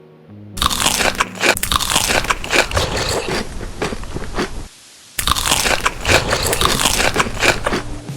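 Close-miked crunching as a person bites into and chews crisp, crunchy food, in two loud runs separated by a short pause about four and a half seconds in.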